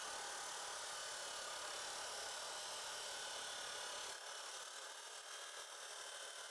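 Saw blade cutting through HDPE pipe, a faint steady whir that eases slightly about four seconds in.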